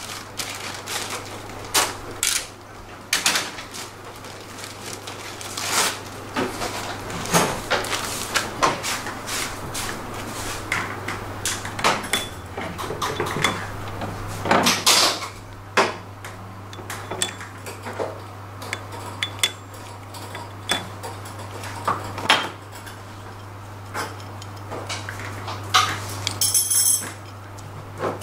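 Metal scooter CVT parts (clutch assembly, clutch bell, variator pieces) being handled and set down on a steel workbench: irregular clinks and clanks, over a steady low hum. A short high-pitched squeak near the end.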